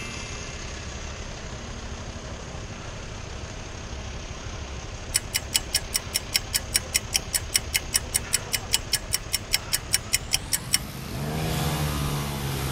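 Pedestrian crossing signal beeping rapidly, about five beeps a second for some six seconds, over the steady hum of idling street traffic: the sign that the green man is showing. Near the end a motor scooter's engine revs up as it pulls away from the lights.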